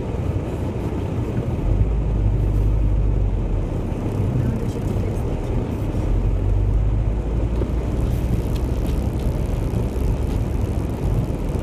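Steady low rumble of a vehicle driving over a snow-covered track, heard from inside the cab. The deepest part of the rumble grows stronger about a second and a half in.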